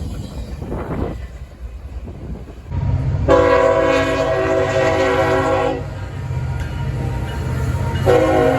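CSX freight locomotive's multi-chime air horn sounding: one long blast of about two and a half seconds, then a second blast starting near the end, over a low engine rumble that builds just before the first blast.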